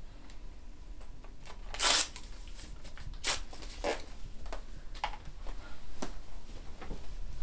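A red paper heart cut-out crinkling and rustling in someone's hands, in a string of short sharp rustles. The loudest comes about two seconds in and another about a second later.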